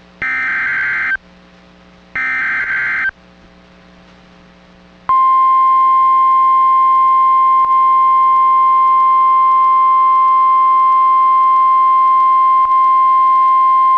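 Emergency Alert System activation on NOAA Weather Radio: the last two of the three repeated SAME header data bursts, each about a second of buzzy warbling tones. After a pause of about two seconds comes the steady 1050 Hz warning alarm tone, held for about nine seconds, which signals that a warning follows.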